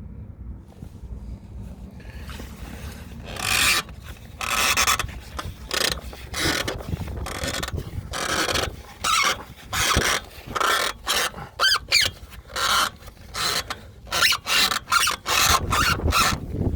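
Mitsubishi Lancer X front suspension squeaking: a rasping, rubbing squeak repeated with each movement, starting about three seconds in at roughly once a second and coming faster toward the end.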